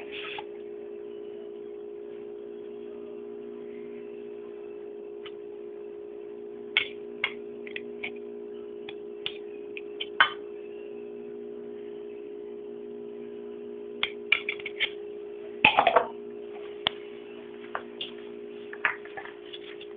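Light clicks and taps of a spoon and jam jar against a ceramic plate, scattered irregularly, over a steady low hum. A short, louder scrape about three-quarters of the way through.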